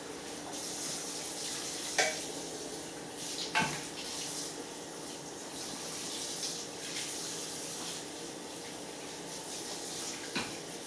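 Kitchen tap running into a sink, a steady splashing hiss, with dishes clinking sharply a few times: about 2 s in, again a second and a half later, and near the end.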